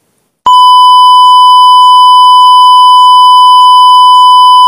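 Censor bleep: a loud, steady, high-pitched beep starting about half a second in, dubbed over speech to hide a spoken IP address.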